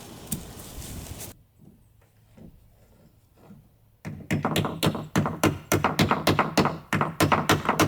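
Hammer striking wooden deck balusters, a fast, even run of sharp knocks about three a second starting about halfway through, after a few faint knocks.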